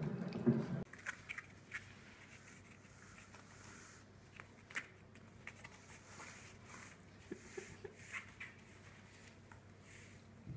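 Puppies eating from bowls briefly at the start, then faint scuffling and scattered small clicks as young puppies paw at and tug a fluffy toy on a rubber mat.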